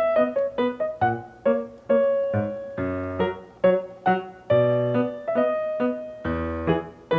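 Background music: a light piano or electric-piano melody, short notes and chords.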